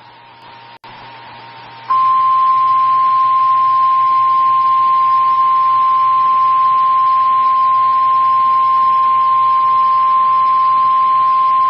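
NOAA Weather Radio's 1050 Hz warning alarm tone: one loud, steady, single-pitched tone that starts about two seconds in and lasts about ten seconds, over faint radio hiss and hum. It signals that a warning broadcast, here a severe thunderstorm warning, is about to follow.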